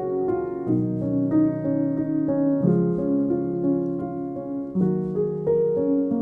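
Background piano music, slow sustained chords changing about every two seconds.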